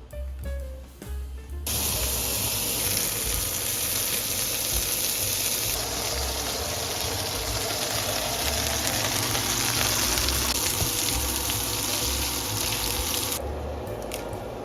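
Kitchen tap running into a sink, turned on about two seconds in and shut off near the end.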